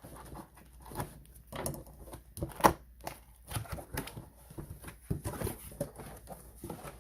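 A humidifier's cardboard box and its packaging being handled and opened: irregular rustling, scraping and light tapping, with one sharper knock a little before the middle.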